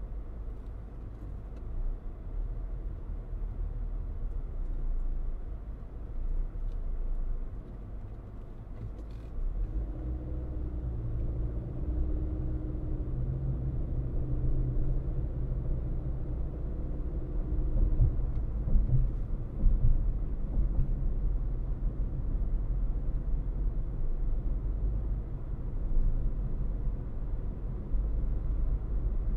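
Car driving on a road: low, steady road and tyre rumble with engine noise, and an engine hum that comes in about a third of the way through.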